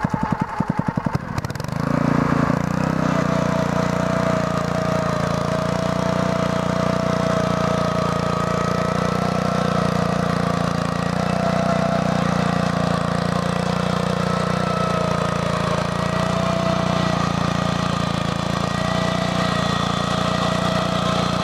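BCS 850 walk-behind tractor's engine speeding up from idle about two seconds in, then running steadily under load while its Berta rotary plow digs through sod. A wavering whine rides over the engine.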